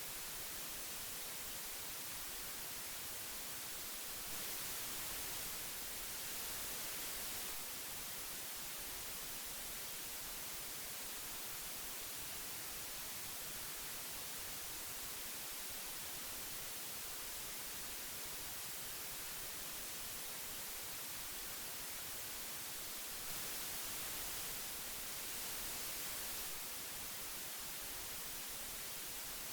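Steady hiss of old magnetic tape, weighted toward the high end, with a slightly louder, brighter stretch of a few seconds twice, about 19 seconds apart: a looped tape-hiss recording.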